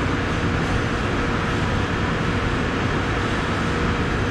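Steady drone of running machinery: a constant even noise over a low rumble, with a steady mid-pitched tone in it.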